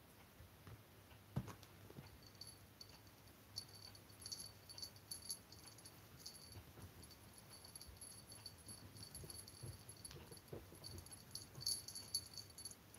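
Faint, intermittent tinkling of a small bell on a cat's collar, jingling as the cat's chin and neck are scratched, with soft rustling of the blanket and a single light knock about a second in.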